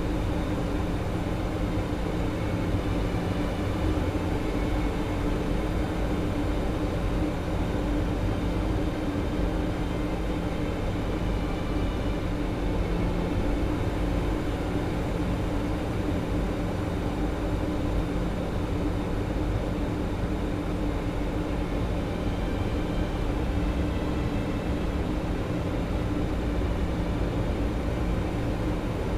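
Steady cockpit noise of an airliner in flight on approach: engine and airflow noise with a constant low hum, unchanging throughout.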